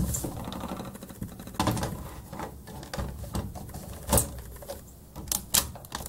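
Dell laptop being set onto its docking station and snapped into place: a run of scattered plastic clicks and knocks. The sharpest comes about four seconds in, with a quick cluster of clicks near the end.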